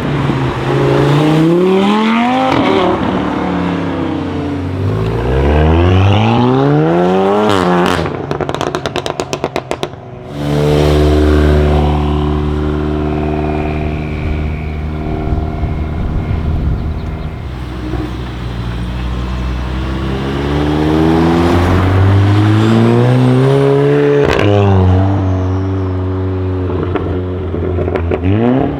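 Tuned 500 hp Volkswagen Golf 7 R's turbocharged 2.0-litre four-cylinder accelerating hard, its pitch climbing and then dropping at each gear change. About eight seconds in, a rapid string of exhaust crackles and pops as the throttle is lifted, followed by a stretch of steady held revs and another climbing acceleration.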